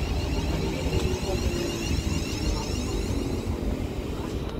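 London Northwestern Railway Class 350 Desiro electric multiple unit moving through the station, its traction equipment giving a high, repeatedly rising whine over the low rumble of wheels on the track, as when it pulls away under power.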